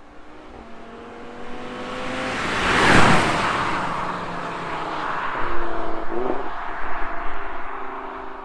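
A high-performance sports car accelerating past. Its engine and exhaust note swells to its loudest about three seconds in as it goes by, then stays loud as it pulls away with the revs still climbing.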